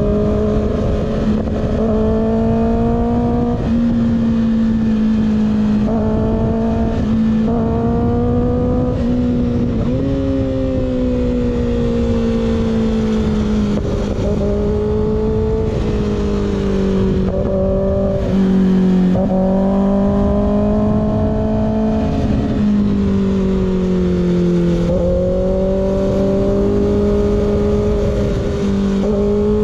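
Kawasaki ZX6R's inline-four engine through an unbaffled M4 GP19 slip-on exhaust, running at steady mid revs while riding. The pitch rises and falls gently with small throttle changes, and there are a few brief dips.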